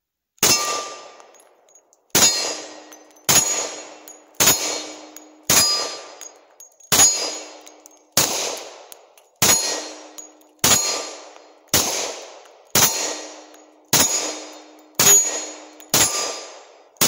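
Glock 20 Gen 4 pistol firing 10 mm Auto rounds in slow aimed fire: about fifteen shots at roughly one a second, each trailing off in a ringing tail, emptying the 15-round magazine.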